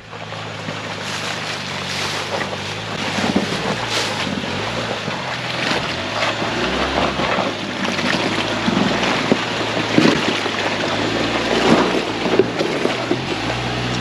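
Ford Bronco's engine working up a steep rutted dirt climb, its pitch rising and falling with the throttle. Tyres crunch and knock over rocks. It grows louder as the truck comes up close.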